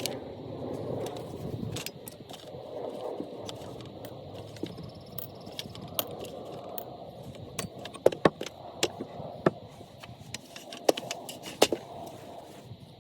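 Small metal parts and tools clicking, knocking and scraping, with irregular sharp clicks over a rustle of handling, consistent with a carburetor being taken apart and cleaned on a bench.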